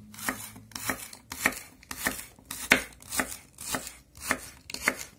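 Chef's knife slicing a celery stalk on a wooden cutting board: nine evenly spaced cuts, about one every half second, each a sharp knock of the blade through the stalk onto the board.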